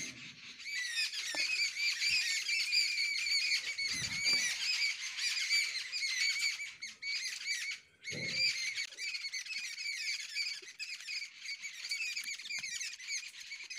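Many small birds chirping at once, a dense, unbroken chatter of short high chirps, with a couple of faint low knocks from hands at work.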